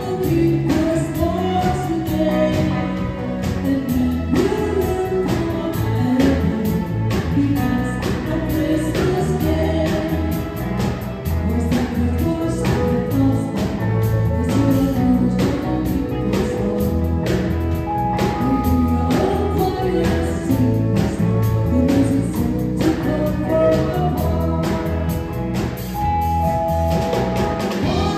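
Live band playing a song with women singing lead, backed by electric guitar, keyboard and a drum kit keeping a steady beat.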